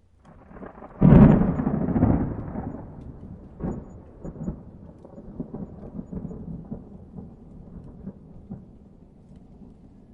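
Thunder: a loud clap about a second in, then a long rolling rumble with scattered sharp cracks that slowly dies away.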